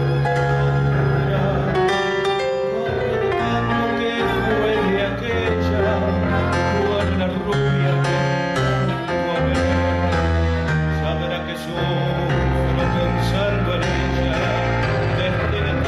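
Tango orchestra playing live, with bass notes changing every second or so under a dense band of strings and other instruments.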